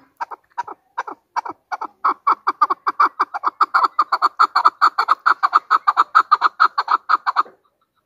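Chukar partridge calling: a long series of short repeated chuck notes that grows faster and louder about two seconds in, then cuts off suddenly near the end.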